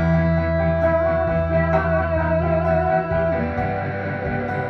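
Live band music captured raw in the room without recording gear: an electronic keyboard plays a long held melody note over a bass line. A few hand-drum strokes come in near the middle.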